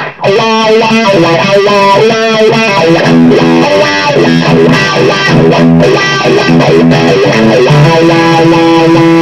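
Electric guitar played through an automatic wah pedal, a run of single notes with a rippling wah on them. The playing ends on a held note about eight seconds in.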